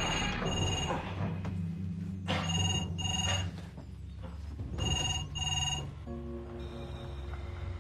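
Electronic desk telephone ringing in short double rings, three times about two and a half seconds apart, then stopping near the end. Background music plays underneath throughout.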